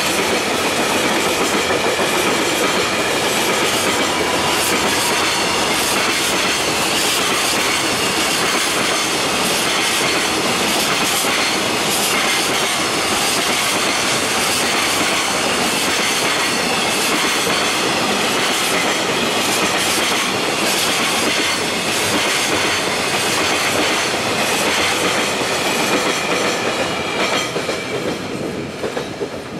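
Loaded container freight wagons rolling past, their wheels clattering steadily over the rail joints; the noise falls away near the end as the last wagon goes by.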